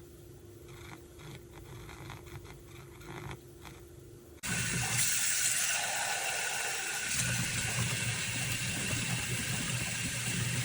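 A faint steady hum with light clicks, then about four seconds in a sudden switch to a loud, steady rush of running or pouring liquid that lasts until the sound cuts off.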